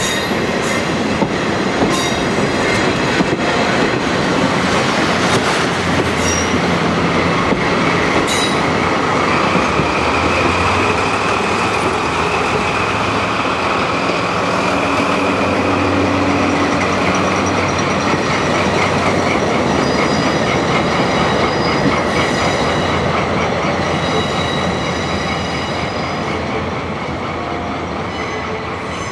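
Train of KiHa 40 series diesel railcars rolling along, with wheels clicking over rail joints in the first part and squealing in high steady tones after that. The sound eases off near the end.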